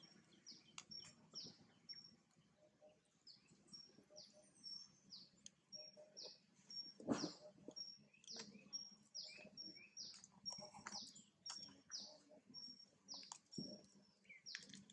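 Faint background bird chirping: short high notes, many falling in pitch, repeated once or twice a second. A single sharp tap about halfway through.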